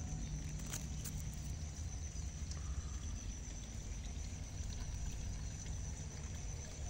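Low rumble of wind and handling on a phone microphone as it is pushed through rice plants, with a few clicks and rustles of leaves brushing it in the first second or so, over a steady high-pitched thin tone.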